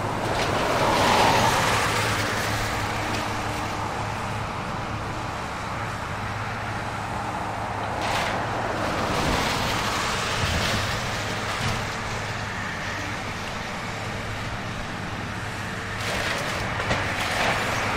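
Steady engine rumble of a Caterpillar wheeled excavator working on a house demolition, mixed with road traffic noise. A low hum runs under a broad haze, with swells of louder noise about a second in, around the middle, and near the end.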